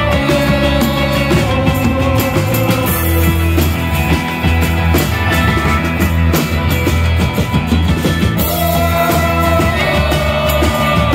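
Live rock band playing loudly: strummed acoustic guitar, electric guitar and a drum kit with cymbals.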